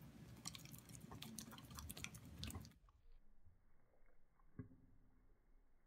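Golden retriever puppy smacking its lips and licking peanut butter: faint wet clicks and smacks. About three seconds in, the sound turns slowed and muffled, with a few dull ticks and one thump, as the slow-motion playback begins.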